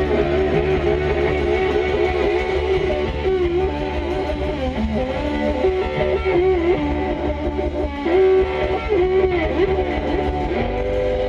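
Live blues band playing: an electric guitar takes a lead line with bent notes, over bass guitar and drums.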